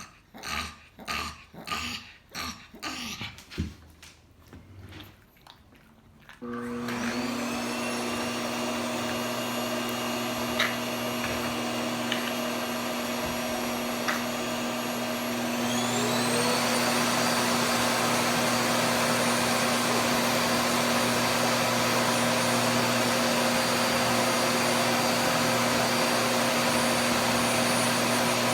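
A pug's rhythmic panting, about two breaths a second, then a vacuum cleaner switches on about six seconds in and runs with a steady hum. About fifteen seconds in its motor rises in pitch to a higher, louder setting and stays there, with a few small clicks as it works over the dog's coat.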